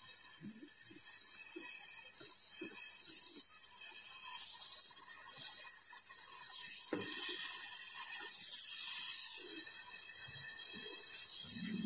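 Gas brazing torch flame hissing steadily and high-pitched while it heats copper refrigerant pipe joints for brazing.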